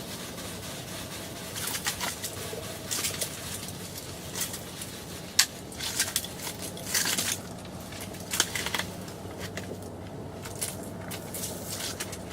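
Irregular rustling and crinkling of clothing and gear being handled, in short bursts, over a faint steady low hum.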